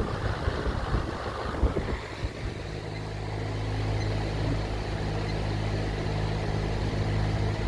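Vintage Emerson Electric 20-inch reversible box fan running in reverse (exhaust), with a steady motor hum and the rush of air off the blades. There are a few knocks in the first two seconds.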